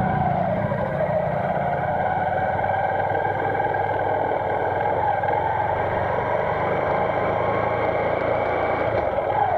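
Small motorcycle engine running steadily under way, with a droning note that wavers slightly in pitch.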